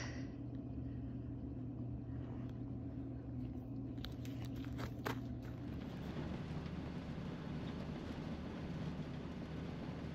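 A steady low hum with a few light clicks, then, about six seconds in, the engine and tyre rumble of a Ford E350 step van driving on an icy road, heard from inside the cab.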